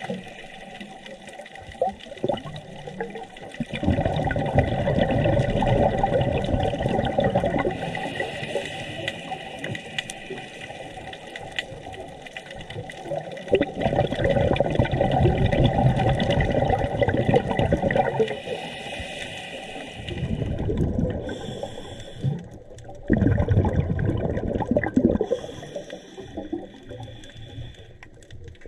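A diver's exhaled bubbles underwater, coming in bursts a few seconds long with quieter gaps between breaths.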